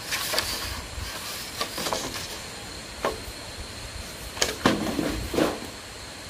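Green bamboo poles knocking and scraping against each other as they are lifted and shifted on the ground, with the rustle of leaves; a handful of sharp knocks, the loudest a little past the middle.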